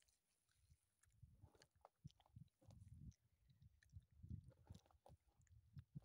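Faint chewing of raw beef heart: soft, irregular wet mouth sounds with small clicks.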